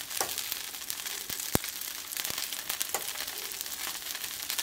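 Oil sizzling and crackling under a lacy sama-rice dosa on a hot flat tawa, a steady hiss with scattered small pops. There is one sharper click about one and a half seconds in.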